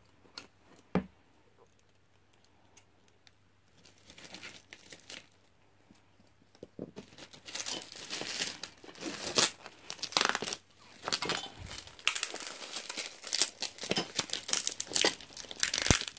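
Plastic packaging being handled and pulled off: a few light clicks and a single knock about a second in, then from about halfway through, continuous crinkling and tearing.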